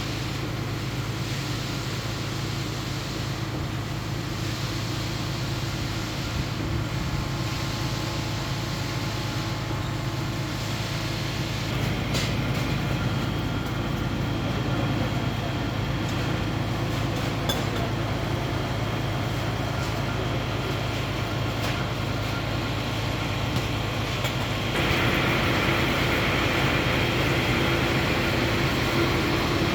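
Heavy engine of site machinery running steadily under load. It gets louder in two steps, about twelve seconds in and again near twenty-five seconds, with a few brief clicks or knocks.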